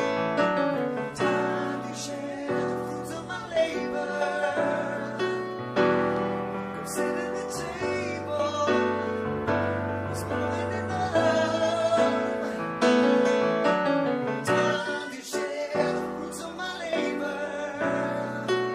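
Live acoustic music: instruments accompany a singing voice. The singing is not made out as words.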